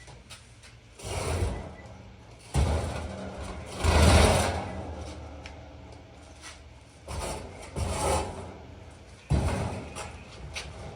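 A heavy old metal stove being dragged and shifted across a concrete floor in about six short, rough scrapes, some starting with a knock.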